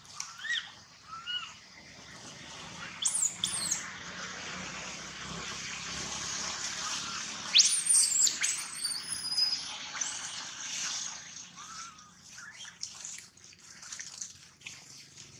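Baby long-tailed macaque crying: short whimpering calls near the start and again late, and two sharp high rising squeals a few seconds apart, over a steady high hiss.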